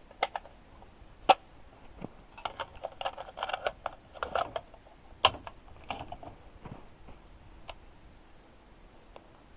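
Small clicks and rattles of a rifle magazine being handled as a 7.62x39 cartridge is pressed back into it, coming in irregular clusters, with two sharper clicks about a second in and about five seconds in.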